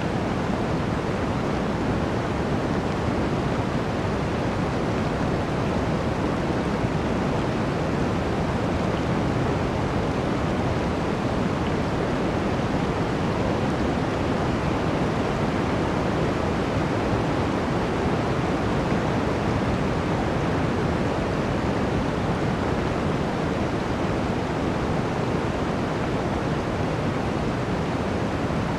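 Blizzard wind rushing steadily through a forest, an even roar without distinct gusts.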